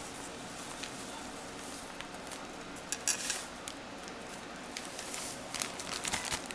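Plastic zipper-top bag crinkling and rustling as it is handled, in short bursts about three seconds in and again near the end.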